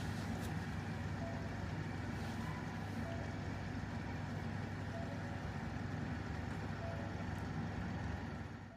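Steady low mechanical hum of a running vehicle, with a few faint short tones now and then; it fades out near the end.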